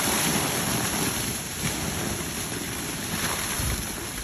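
A steady hissing spray of water hitting a hanging plastic tarp and the ground below it.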